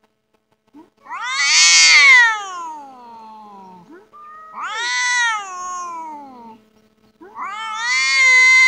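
Domestic cat yowling in a face-off with another cat: three long drawn-out calls, each rising and then sliding down in pitch, starting about a second, four and a half seconds and seven seconds in. The low, wavering yowl is the warning cry of a cat confronting a rival.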